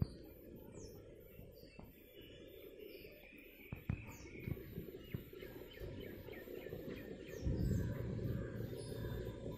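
Outdoor ambience of wild birds calling: many short, falling high chirps, with a quick run of repeated notes in the middle. A few soft knocks come about four to five seconds in, and a low rumble swells near the end.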